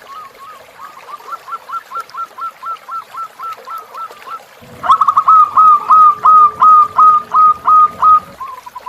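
Zebra doves (perkutut) cooing in rapid series of short, clipped notes, a few per second: a softer series, then a louder and closer series from about five seconds in that ends shortly before the close. Faint trickling stream water underneath.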